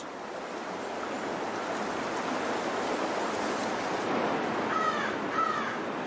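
Steady rush of a salmon stream, with a bird calling twice, two short calls near the end.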